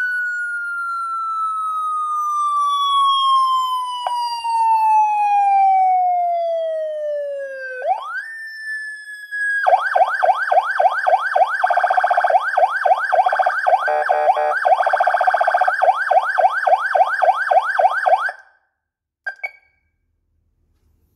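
A 20 W electronic motorcycle siren of the police type. It first sounds a slow wail that falls from high to low over about eight seconds, then rises quickly and holds briefly. It then switches to a fast yelp of rising sweeps, about three a second, which cuts off suddenly about eighteen seconds in, followed by two short chirps.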